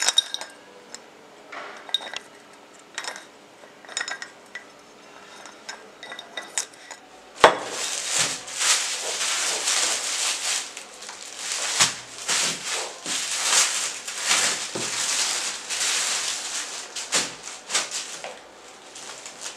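A few light clinks and taps as a water bottle is handled and set down, then, about seven seconds in, plastic packaging starts crinkling and rustling continuously as a shirt is pulled out of its plastic bag, fading near the end.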